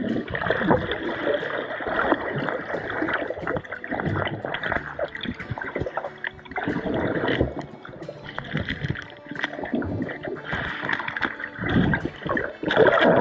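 Muffled gurgling and sloshing of creek water, heard through a camera held underwater, swelling and fading every second or two.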